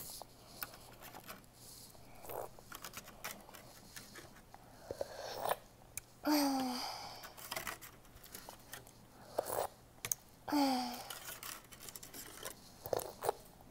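Plastic spoon scraping, clicking and squeaking against a thin plastic candy tray of jello, in scattered strokes. A few short squeaks glide up or down in pitch, and the loudest come about six seconds in and again about ten and a half seconds in.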